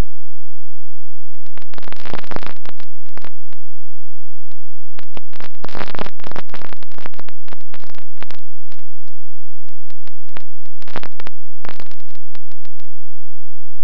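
Crackling static in three long bursts with scattered clicks between them, over a faint steady hum.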